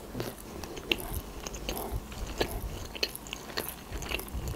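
Close-up chewing of a mouthful of sushi roll with the mouth closed: a string of irregular small clicks and smacks.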